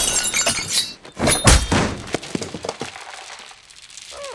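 Film fight sound effects: a burst of sharp hits with glass and crockery breaking in the first two seconds, the loudest about one and a half seconds in. Smaller clatters follow and die away.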